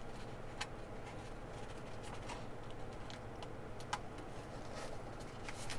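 Faint handling of a small package being unwrapped: a few scattered light clicks and rustles over a low steady hum.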